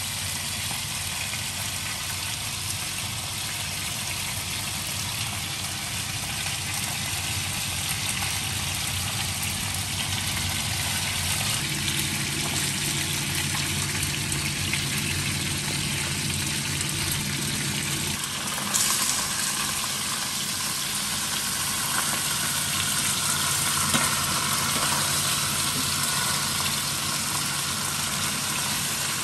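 Fish sizzling as it fries in oil in a pan, over a steady low hum, with a couple of brief knocks from the utensils in the pan.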